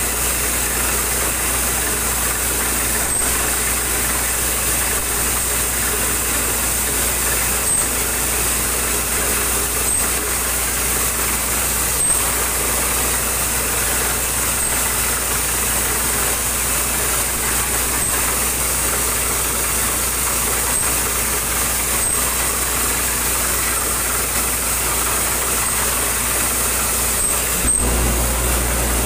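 Borewell drilling rig at work, with the steady drone of the engines driving the rig and its air compressor under a continuous hiss. Near the end the low engine drone grows heavier.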